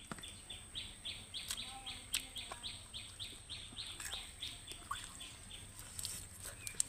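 A small bird chirping in a rapid, even series, about four short high chirps a second, with a few sharp clicks.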